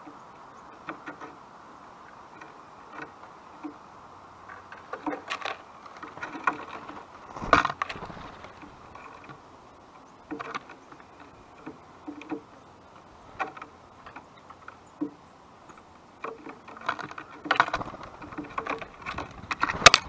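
Irregular light clicks and taps from birds at a backyard feeder, over a faint steady hum. The loudest tap comes about seven and a half seconds in, and the taps grow busier near the end.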